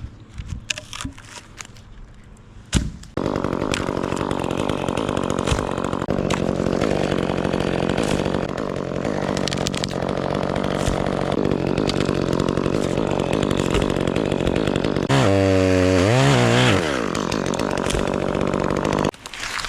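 Chainsaw starting up about three seconds in and running steadily. Near the end it gets louder while its pitch dips and climbs back over a second or two, then it cuts off abruptly. A few faint knocks come before it starts.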